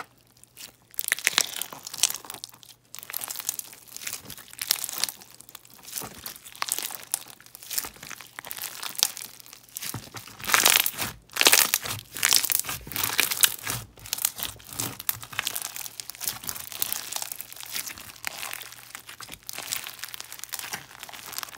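Clear fishbowl slime packed with plastic fishbowl beads being stretched, squeezed and poked by hand: a dense, irregular crunching and crackling of the beads, loudest about halfway through.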